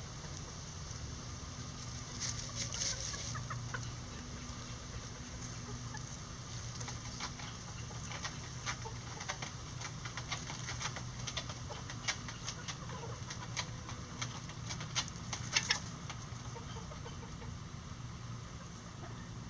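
Bantam chickens (lavender Old English Game bantams) clucking softly, with many short sharp clicks and rustles in the second half as the birds scratch and peck in dry leaf litter, over a steady low hum.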